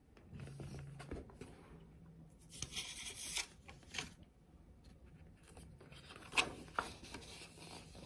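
Pages of a hardcover picture book being handled and turned: paper rubbing and rustling, with a few light taps and clicks as the book is moved.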